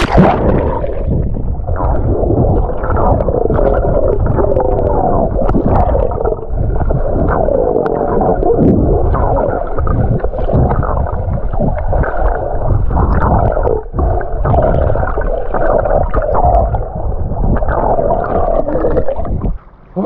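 Water heard through an action camera held underwater while a swimmer dives and swims: muffled churning and bubbling, cut off above the middle range, with a splash as the camera plunges in at the start.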